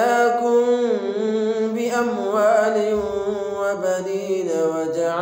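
Man's voice reciting the Quran in melodic tajweed, holding long drawn-out notes that bend and turn in pitch.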